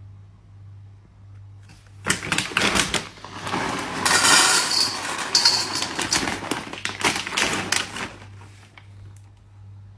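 A rapid, dense clatter of small knocks and rattles, starting about two seconds in and lasting around six seconds, over a steady low hum.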